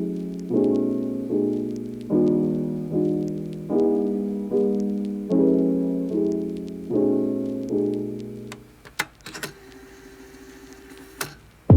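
Background piano music with evenly repeating chords, which stops about three-quarters of the way in. A few faint clicks and knocks follow.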